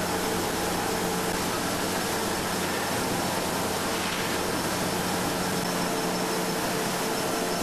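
Tarpaulin laminating machine running steadily as the PE tarpaulin web travels over its rollers: a constant mechanical hum and hiss with a few steady tones.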